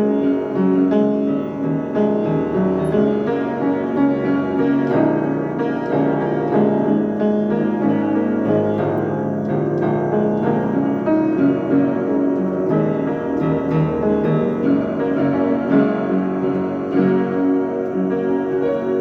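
Piano music: a piece played continuously, with chords and melody notes throughout.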